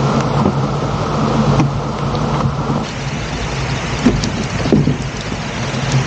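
A boat engine running steadily under a loud, continuous rushing noise, with a few faint knocks partway through.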